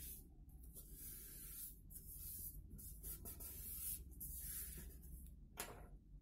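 Palms rubbing a freshly glued paper leaf flat against cardboard: faint, soft swishing strokes about once a second, with a sharper rustle near the end.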